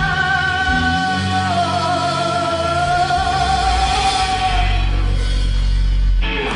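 Rock band ending a song: a singer holds one long note with vibrato over bass and band, the note fades out about five seconds in and the band stops abruptly near the end.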